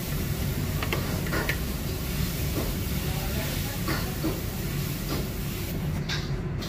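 Stir-fried noodles sizzling in a wok over a gas wok burner, with a steady hiss and low rumble. A metal ladle scrapes and clanks against the wok several times. Near the end the high sizzle falls away and the low rumble carries on.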